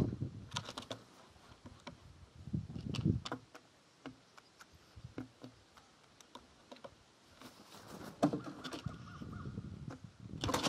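Crows pecking peanuts off a wooden platform feeder, making scattered sharp taps of beak on wood. A crow caws once, about eight seconds in.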